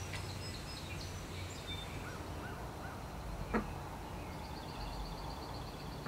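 Pond-side outdoor ambience with scattered bird calls: a few high notes at the start, three short arched chirps about two seconds in, and a fast high trill in the last second and a half. A single short sharp sound cuts in just past halfway.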